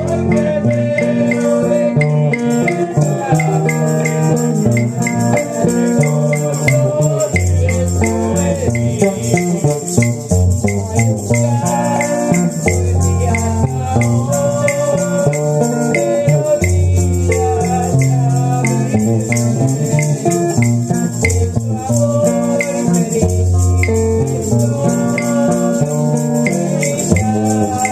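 Church hymn accompaniment: electric guitar with a bass line moving underneath, and a shaker keeping a constant rattle.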